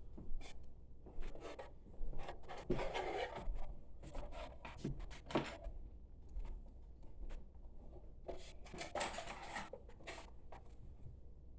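Scattered light clicks, knocks and rustling of objects being handled, over a low steady hum.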